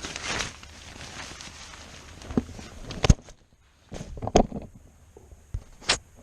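Rustling of a poncho tarp and pack being handled and wrapped, with several short knocks and thumps spread through it.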